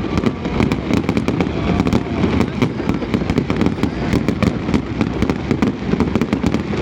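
Fireworks display: a dense, continuous barrage of sharp cracks and crackles over a steady low rumble of bursts.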